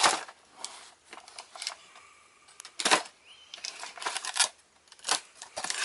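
Cardboard box being handled and its flaps pulled open: irregular clicks, taps and rustles of cardboard, with one louder one about three seconds in and a quick run of them near the end.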